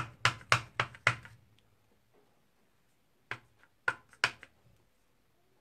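Sharp taps and clicks of stamping tools handled on a craft table: five quick taps in the first second and a half, then three or four more about three seconds in.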